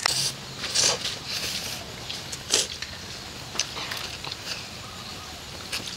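Children eating spicy instant noodles with plastic forks: a few short slurps about a second or two apart, with small clicks in between.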